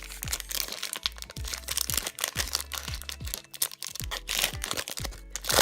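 Crinkling and tearing of a foil Pokémon card booster pack being opened, with a louder rip near the end, over background music with a steady beat.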